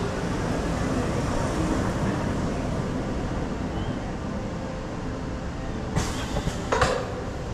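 Ice Breaker launched roller coaster train rolling slowly out of the station onto the launch track, with a steady rumble. Two sharp knocks come near the end.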